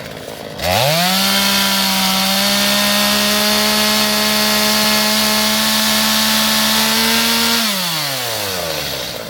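Two-stroke chainsaw revved up to full throttle about half a second in and held there steadily for about seven seconds while cutting brush, then dropping back toward idle near the end.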